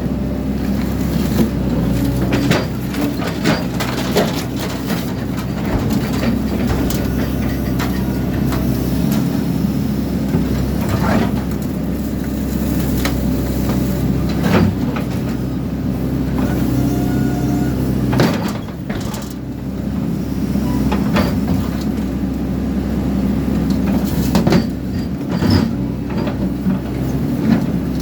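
Excavator diesel engine running steadily while metal clanks, knocks and scrapes as the machine tears apart a hot water cylinder for its copper, with a brief squeal of metal past the middle.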